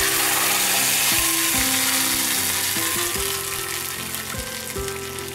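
Wet ground coconut-and-spice paste poured into hot tempering oil with mustard seeds and dried red chillies, sizzling hard at first and dying down over a few seconds as the oil cools.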